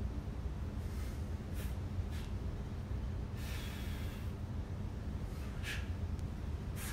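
A man breathing hard through an abdominal exercise: short, sharp breaths and one longer exhale of about a second just past halfway, over a steady low hum.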